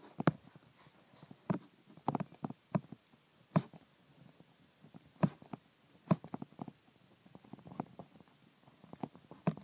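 Stylus tapping and sliding on a tablet screen while handwriting words: a run of light, irregular clicks and taps, several a second.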